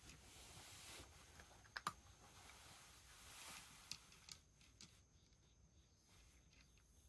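Cat eating wet food from a shallow dish: faint, quiet licking and chewing with small wet clicks, the sharpest a pair about two seconds in and a few more around four to five seconds, dying away after that.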